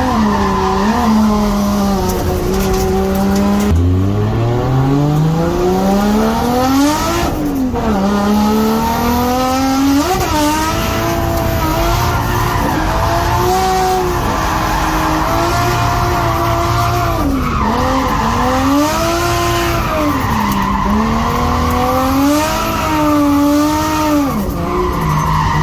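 Nissan Skyline R32's RB20DET turbocharged straight-six drifting, with tyres squealing. The engine revs hard and its pitch swings up and down again and again as the throttle is worked, with one long climb a few seconds in.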